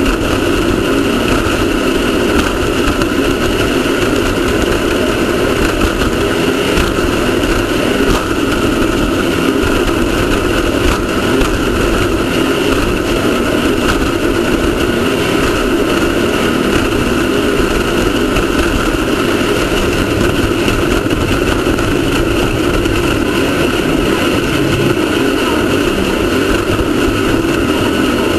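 Off-road race car's engine running steadily at an even pitch under a constant loud rush of noise.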